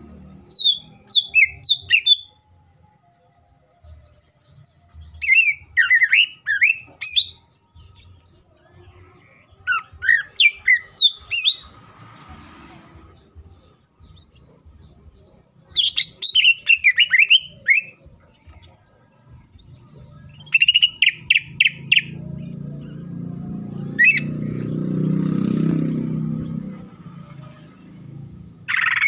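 Greater green leafbird (cucak ijo) singing in short bursts of quick, sweet, descending notes, about six phrases with pauses between them, one a fast run of repeated notes. Near the end a low rumble swells and fades over a few seconds.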